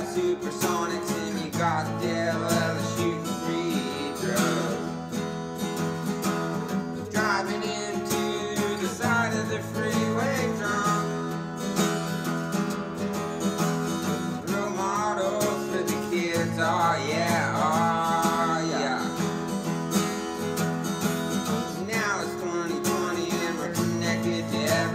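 Background music with strummed guitar.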